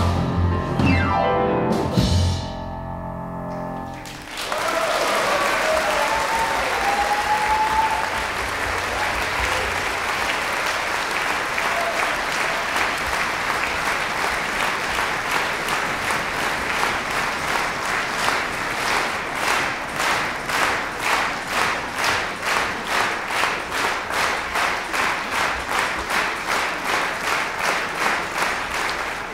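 A band and orchestra end a song on a last held chord. A concert audience then applauds, and the applause turns into rhythmic clapping in unison, about two claps a second.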